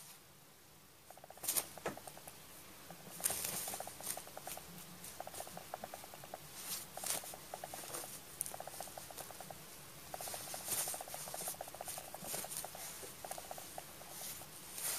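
A cat purring beneath a crinkly paper bag, the purr coming in short rapid-pulsing stretches that start about a second in, while the bag rustles and crackles as the cat shifts and a hand touches it.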